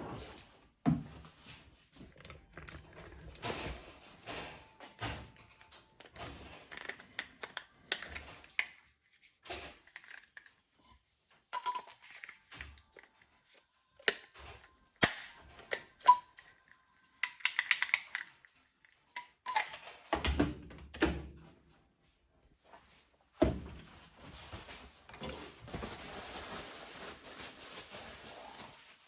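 Parts of a coffee machine being handled and fitted during repair: irregular clicks, taps and knocks, with a few heavier thumps and a steady hiss over the last few seconds.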